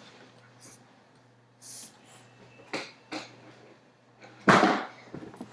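Scattered knocks and a brief rustle, with one louder thump about four and a half seconds in.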